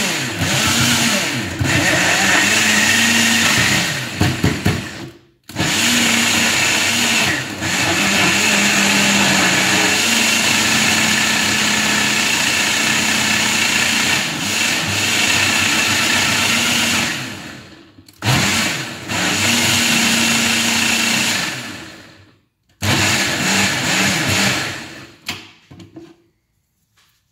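Nutri Ninja 900-watt personal blender grinding raw potatoes, onion, eggs and flour into potato-pancake batter. The motor runs in four runs separated by brief stops; the longest lasts about twelve seconds, and the last one ends about 25 seconds in.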